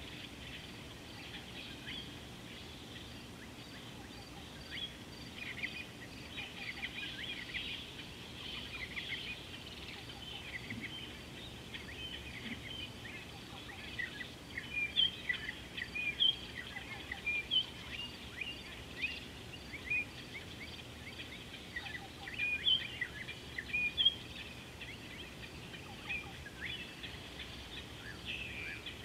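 Birds chirping: many short, high calls overlapping, busiest and loudest in the second half, over a faint steady background hiss.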